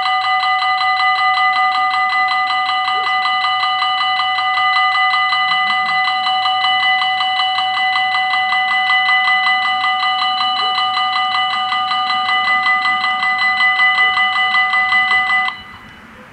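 The level crossing's two warning bells ringing rapidly and continuously as the barriers lower, then cutting off suddenly about fifteen seconds in, once the barriers are fully down.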